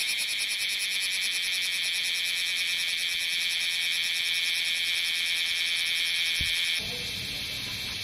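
Bear cicada (kumazemi, Cryptotympana facialis) singing: a loud, harsh, continuous high buzz. About seven seconds in it drops suddenly to a fainter buzz.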